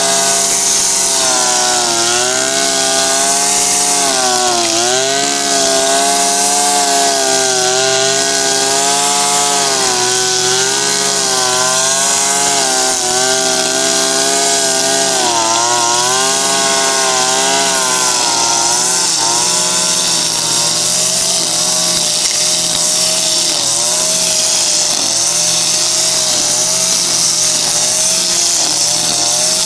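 Makita EM3400U two-stroke brushcutter running at full throttle while its trimmer head cuts grass. Its engine note dips briefly now and then as it bogs under load, around five and sixteen seconds in.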